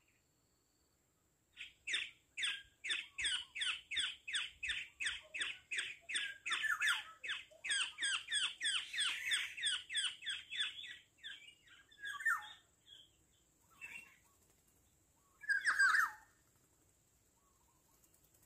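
Black-naped orioles (kepodang) calling: a long rapid run of short, harsh, downslurred notes, about three a second, that stops partway through. A few single calls follow.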